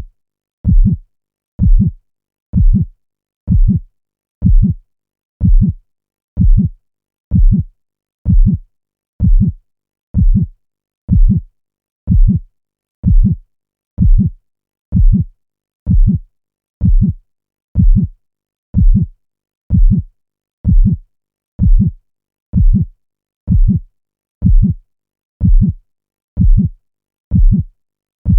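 Heartbeat sound effect: low thumps in a steady, even rhythm of about one beat a second, looped.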